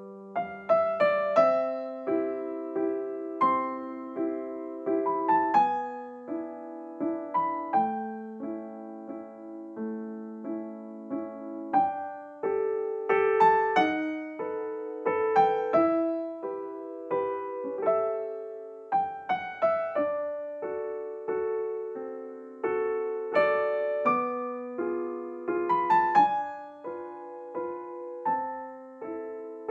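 Background piano music: a gentle melody over chords, notes struck and left to ring.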